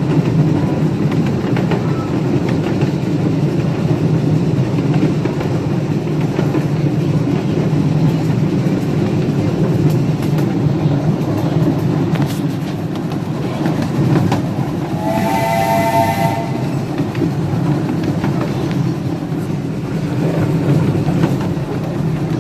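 Rumble and clatter of riding cars rolling along the track behind a live steam locomotive, with one short blast of the locomotive's steam whistle, several tones sounding together, about two-thirds of the way through.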